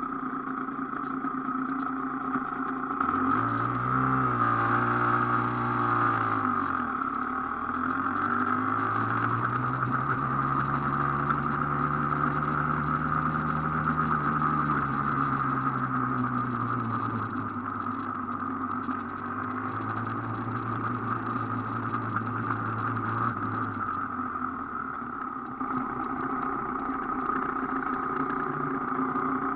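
Aprilia AF1 two-stroke motorcycle engine running as the bike is ridden slowly, its pitch rising and falling with the throttle: a quick climb and drop a few seconds in, then longer held stretches of slightly higher revs.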